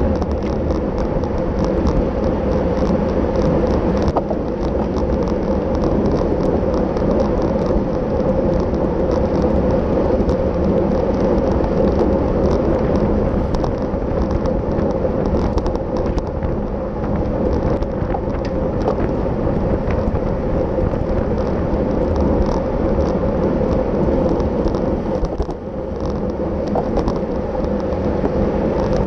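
Steady wind and road rumble from a road bicycle ridden at race speed, heard on the rider's camera microphone, with small clicks and rattles throughout.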